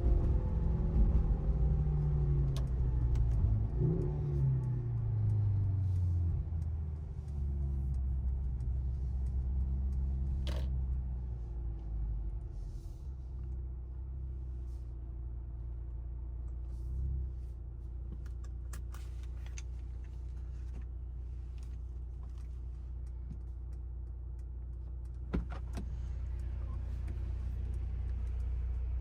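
2023 Mercedes-AMG C43's turbocharged 2.0-litre four-cylinder engine coming off the throttle: the engine note falls in pitch over the first several seconds as the car slows, then settles into a steady low hum. A few short sharp clicks are heard about ten seconds in and again near the end.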